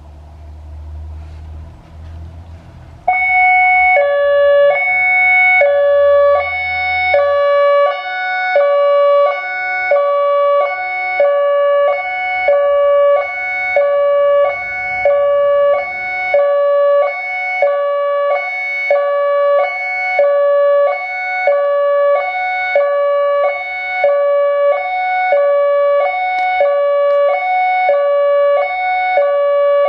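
ACA Alertronic AL-4000 electronic outdoor warning siren starting its hi-lo test signal. It comes on suddenly about three seconds in, loud, and alternates steadily between a higher and a lower tone, about one hi-lo pair a second. A low rumble is heard before it starts.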